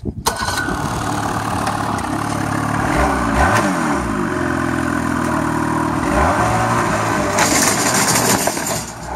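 Ski-Doo snowmobile engine starting up, then running and revving up and down as the sled is driven off, with a louder burst of noise near the end as it climbs a ramp.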